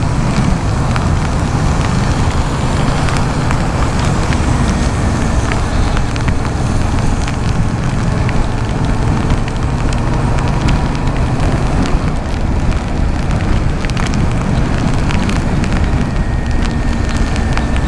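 Yamaha MT-07 ridden through rain: a steady rush of wind on the microphone over the running parallel-twin engine and wet-road noise, with scattered small ticks of rain hitting.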